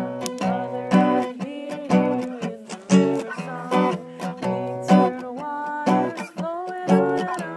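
Background music: a strummed acoustic guitar keeping a steady beat, with a strong strum about once a second.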